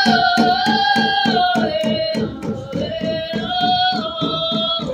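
A group of young singers sings together in long held notes over fast, steady drumbeats.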